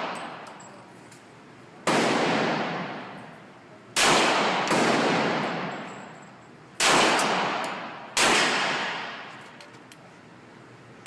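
Five pistol shots from a Glock 35 in .40 S&W, fired at an uneven pace one to two seconds apart with one quick pair. Each shot is followed by a long echo that dies away over a second or more.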